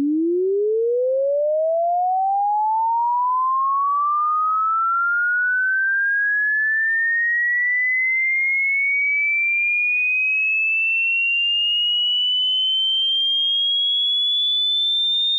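Sine-wave test tone sweeping steadily upward in pitch, from about 290 Hz to nearly 4 kHz, at a constant loud level.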